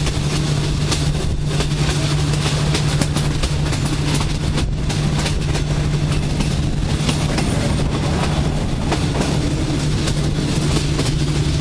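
Passenger train running at speed, heard from an open carriage window: a steady rush of wheel and track noise with a constant low hum and frequent irregular clattering clicks from the wheels on the rails.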